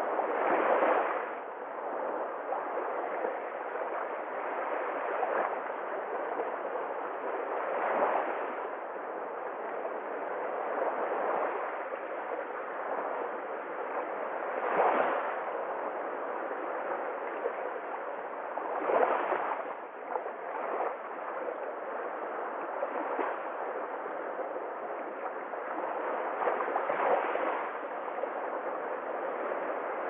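Small sea waves lapping at the shore, a steady wash that swells up every four to eight seconds as a wave runs in.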